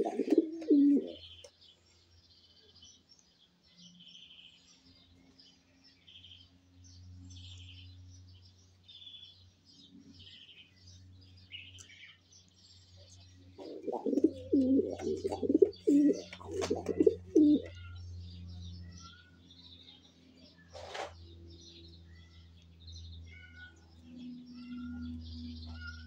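Nestling birds cheeping in many short, high-pitched chirps, the begging calls of chicks gaping to be fed. A louder stretch of low, irregular sound lasts a few seconds around the middle, and one sharp knock comes about two-thirds of the way through, over a steady low hum.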